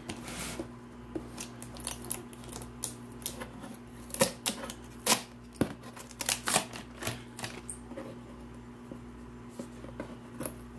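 Hands picking and cutting at the clear round seal stickers on a cardboard box: a run of irregular sharp clicks, crackles and taps, busiest around the middle, over a faint steady hum.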